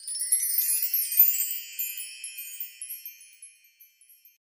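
Intro chime sound effect: a shower of many high tinkling notes, loudest in the first second or so, then thinning and fading out about four seconds in.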